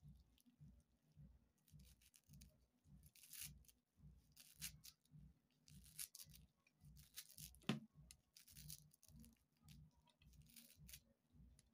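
Faint, steady knife chopping through a bunch of fresh leafy herbs against a ceramic plate: soft regular taps of the blade, about three a second, with crisp rustly cuts through the leaves and one sharper clack of the blade on the plate a little past the middle.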